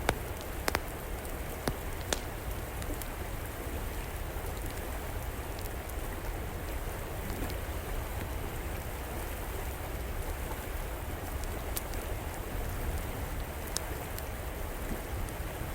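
River water flowing steadily, with a wood fire crackling: a few sharp pops in the first couple of seconds and a couple more near the end.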